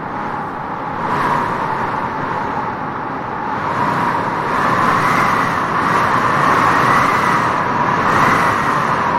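Wind gusting through grass, a steady rushing that swells about a second in and surges slowly.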